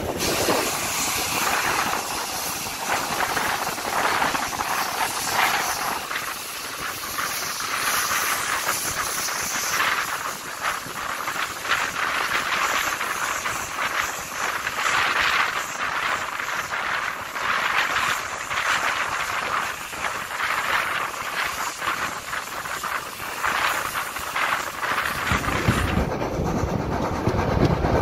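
Steam-hauled train running along the line, heard from an open carriage window: a steady hiss of rushing air and rolling wheels with irregular rattles. Near the end a deeper rumble comes in.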